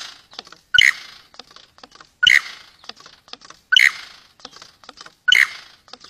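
Male superb lyrebird's courtship display song: four loud, sharp calls about every one and a half seconds, with quick dry clicks between them.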